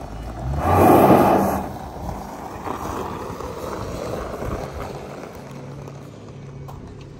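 Dodge Charger's engine running, with one short rev that swells and dies away about a second in, then settling back to a steady low idle.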